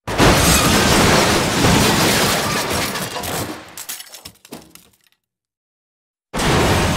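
A crash sound effect: a sudden loud smash of something breaking and shattering, fading over a few seconds into scattered pieces clattering down and stopping about five seconds in.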